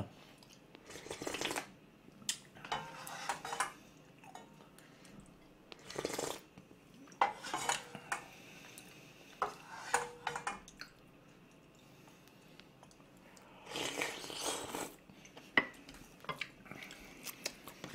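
A spoon clinking and scraping in a frying pan of instant ramyeon: scattered sharp clicks and short scraping strokes at irregular intervals, with a longer scraping stretch near the end.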